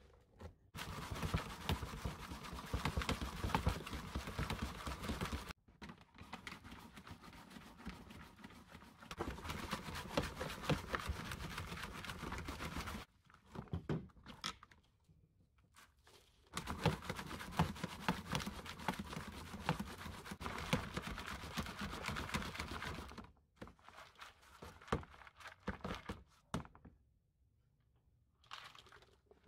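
Compost being shaken and rubbed through a plastic garden sieve over a plastic tub: a gritty rustling and crunching in three long spells of several seconds each, with a few short knocks near the end.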